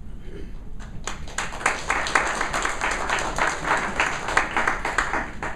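Audience applauding, starting about a second in and stopping at the end.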